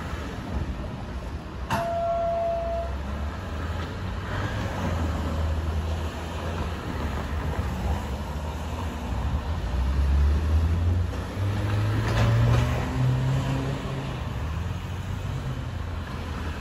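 Cars driving slowly over a railway level crossing, their engines and tyres making a low steady rumble, with one engine rising in pitch as it pulls away about two-thirds of the way through. About two seconds in, a sharp click followed by a short beep of about a second.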